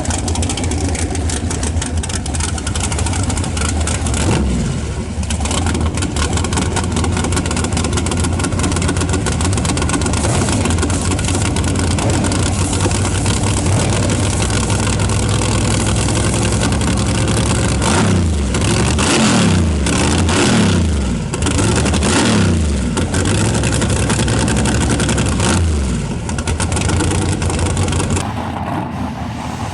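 Loud drag-racing car engines running steadily, then revving in a series of rising and falling sweeps about two-thirds of the way through before easing off.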